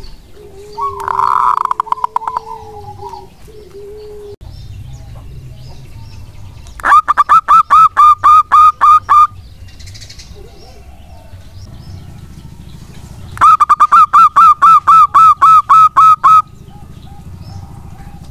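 Zebra dove (perkutut) singing: a short call about a second in, then two bouts of its rapid staccato cooing song, each a string of about a dozen quick, evenly spaced notes at roughly five a second.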